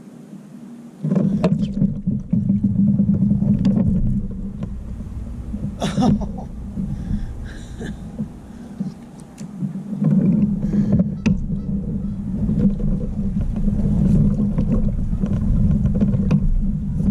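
Wind buffeting an action camera's microphone: a low, uneven rumble that swells and eases in gusts, easing off in the middle and building again near the end. A few light clicks and knocks from handling the rod and reel come through on top.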